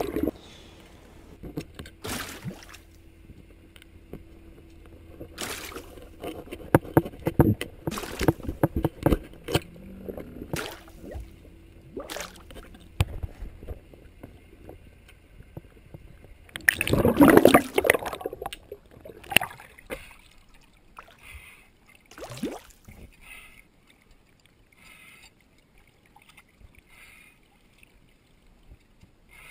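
Underwater handling sounds as growth-covered plastic bags are pulled off a boat's propeller and shaft: scattered knocks and bubbling, with a loud burst about seventeen seconds in. Quieter water splashing follows as the bag is brought up at the surface.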